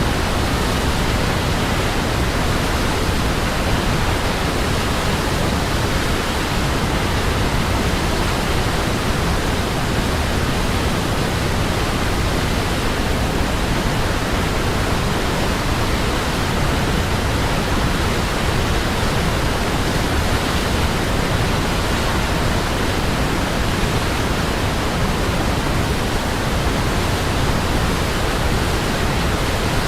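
Waterfall: a steady, unbroken rush of falling water, full and even from deep rumble to hiss.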